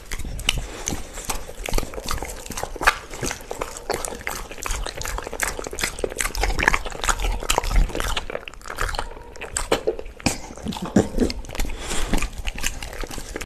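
A dog chewing and smacking on soft slices of cooked meat, close up: a dense, irregular run of short clicks and smacks from its mouth.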